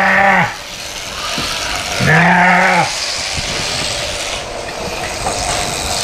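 A ewe bleats twice, once right at the start and again about two seconds in, protesting at being shut in a handling crate. Under the bleats a sheep-shearing handpiece runs steadily as it cuts through the fleece.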